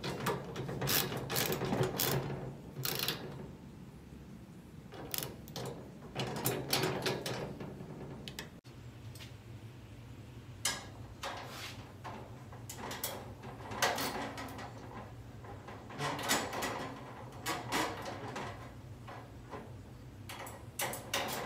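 Irregular metal clicks and clinks of a hand driver with a #5 Allen bit and a half-inch wrench working the bolts, washers and nuts on the joints of a steel roof basket, over a low steady hum.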